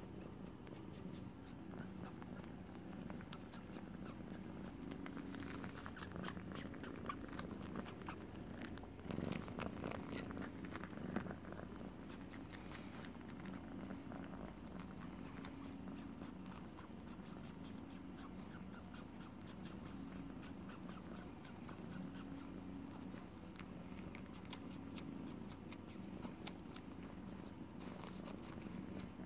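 A nursing mother cat purring steadily, the purr swelling and easing with each breath, with faint soft clicks over it.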